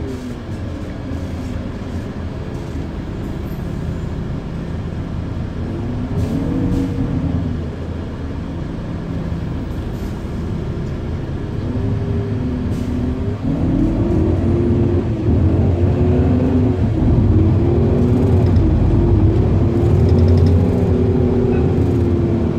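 Irisbus Citelis 12 city bus heard from inside the cabin: engine rumble with a drivetrain whine whose pitch rises and falls as the bus drives. It grows louder from about halfway, with the whine rising and falling several times in a row.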